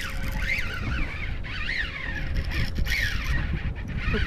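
Jigging reel's drag whining as a hooked fish takes line. It comes in several surges that rise and then fall in pitch, over a steady rumble of wind and water.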